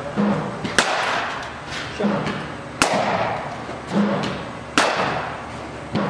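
Cricket bat striking the ball three times, about two seconds apart, each a sharp crack that rings out in the indoor net hall, with a softer low thud between strikes.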